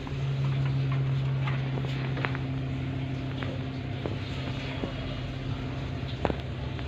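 A motor hums steadily at a low pitch, with a few faint sharp clicks over it.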